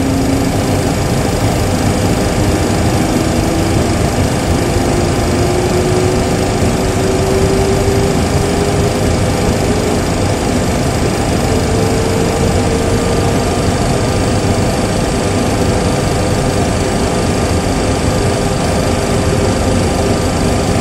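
Simulated sound of a Boeing 737 Classic's number 1 engine spooling up during its start, accelerating toward idle: a whine slowly rising in pitch over a loud, steady rushing noise, played through the full flight simulator's sound system.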